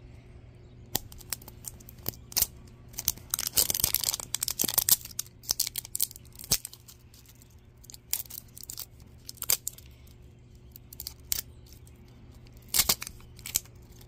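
Plastic shrink-wrap sleeve crinkling and tearing as it is peeled by hand off a plastic toy capsule. It comes as a run of sharp crackles and clicks, densest about three to five seconds in.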